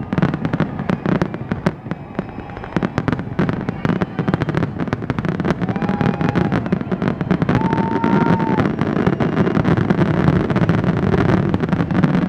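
Aerial fireworks going off in a rapid, dense barrage of bangs and crackles, growing fuller and louder through the second half and breaking off near the end. Two short whistles sound around the middle.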